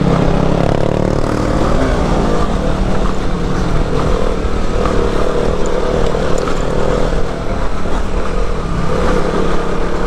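Off-road motorcycle engine running on a dirt trail, its note rising and falling with the throttle.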